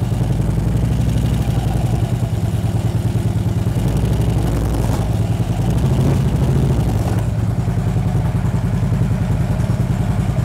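Harley-Davidson touring motorcycle's V-twin engine idling steadily as the bike is eased forward into a steel wheel chock and backed out again, with a light clunk about five seconds in.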